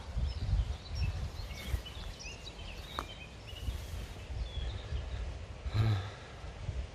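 Wind rumbling and buffeting on the phone's microphone, with small birds chirping faintly in the background during the first few seconds.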